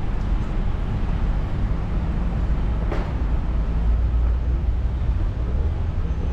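Steady low rumble of wind and riding noise on a bike-mounted GoPro microphone, with one short click about three seconds in.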